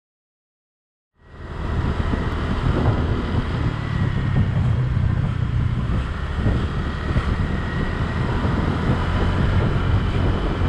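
Dead silence for about a second, then a scooter riding along a road: its small engine running steadily under heavy wind buffeting on the microphone.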